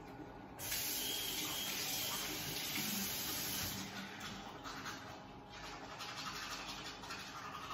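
A bathroom tap runs into the sink for about three seconds, starting abruptly. Then a soft-bristle manual toothbrush scrubs teeth.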